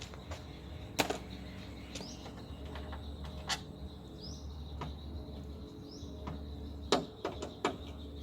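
Sharp clicks and knocks of hand tools and parts being handled while a car door is dismantled: one about a second in, another mid-way and a cluster of three near the end. Behind them a bird repeats a short rising chirp every second or two over a steady faint whine and low hum.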